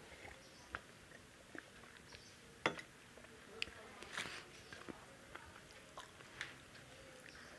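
Close-miked eating sounds by hand: mouth clicks and chewing, a roti being torn and rice mixed with the fingers. Scattered short, sharp clicks throughout, the loudest a little over a third of the way in.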